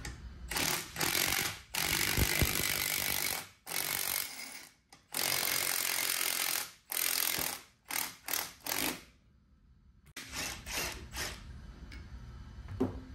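Cordless impact driver running in a series of bursts, turning the forcing screw of a jaw puller to draw a stuck hub off a fan sheave. Several bursts of about a second each, then a few shorter ones before it stops about nine seconds in.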